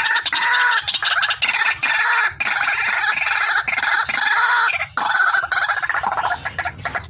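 White-breasted waterhen (ruak-ruak) calling nonstop: a fast run of harsh, pulsed notes with a short break about five seconds in. This is the female's call, as used to lure birds.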